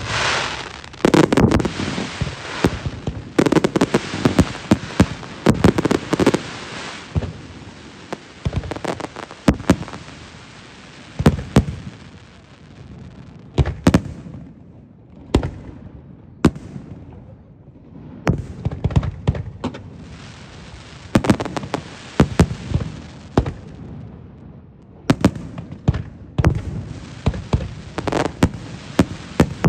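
Aerial fireworks display: shells bursting with many sharp bangs, with crackling between them. The bangs come thick and fast for the first several seconds, thin out to single bangs in the middle, then build again in the second half.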